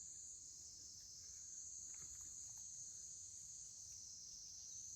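Faint, steady, high-pitched insect chorus, like crickets, with a few soft ticks in the middle.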